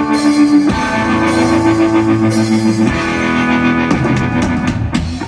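Live two-piece rock band playing amplified through a stage PA: electric guitar holding ringing chords that change every second or two over a drum kit, with a quick run of drum and cymbal hits near the end.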